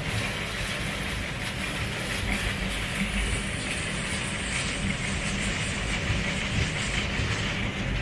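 Wooden cable car cabin travelling along its steel haul cable, with a steady mechanical running noise heard from inside the cabin.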